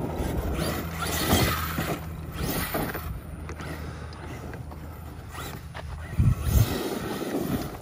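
Arrma Kraton 8S 1/5-scale electric RC monster truck driving over dirt and gravel, its motor revving in short rises while the tyres scrabble, with a heavier thump about six seconds in.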